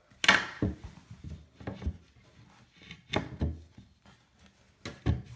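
A cut plywood board being handled and set against the side of a plywood cabinet: a series of wooden knocks and short rubs, the loudest just after the start.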